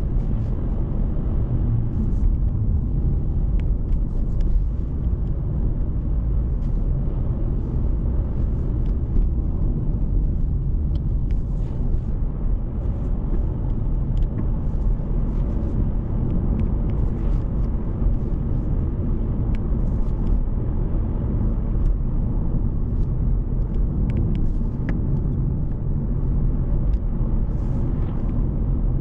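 Steady low rumble of a car on the road, engine and tyre noise with no change in pace, with faint scattered ticks above it.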